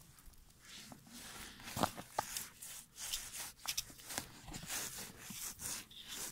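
Irregular crunching and scraping on snow-covered ice, with scattered light taps and no steady sound.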